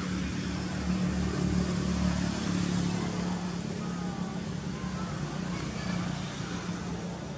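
A motor engine running steadily nearby, a low drone that swells slightly about a second in and then holds, over open-air background noise.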